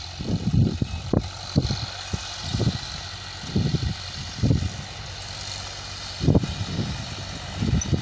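John Deere tractor's diesel engine running steadily under load as it pulls a rotavator across the field, heard at a distance. Wind buffets the microphone in irregular low gusts that are louder than the engine.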